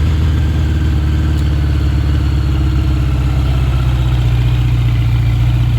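1983 Honda Gold Wing GL1100's flat-four engine idling steadily, not yet fully warmed up. The tachometer no longer whines now that its shaft has been lubricated.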